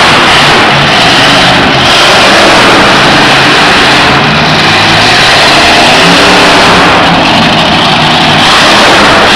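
Monster truck's supercharged V8 engine revving hard, very loud, its pitch rising and falling as the throttle is worked.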